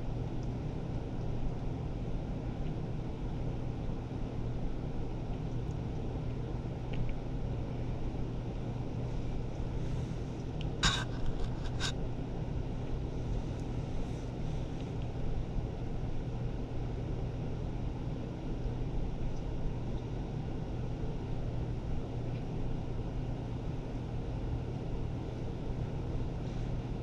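Steady low mechanical hum, with two sharp clicks about eleven and twelve seconds in.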